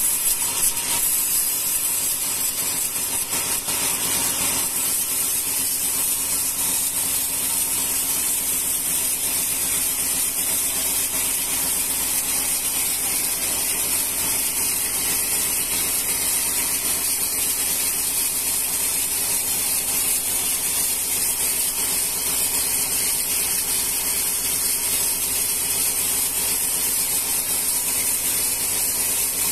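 Band sawmill blade ripping through a rengas log as the carriage feeds it past, a steady hissing cut over the low hum of the running saw.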